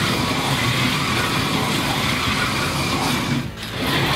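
Carrera slot cars racing around a plastic track: a steady whirring of their small electric motors and pickups running in the slots, dropping away briefly about three and a half seconds in.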